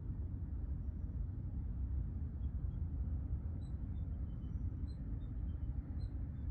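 Outdoor ambience: a steady low rumble, with faint short bird chirps repeating about once a second from about halfway through.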